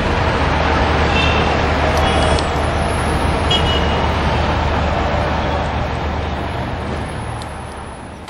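Steady low engine rumble and traffic noise from motor vehicles, fading over the last second or so.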